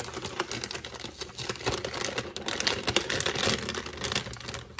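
Packaging being handled and opened: a rapid, irregular run of light clicks and crinkles.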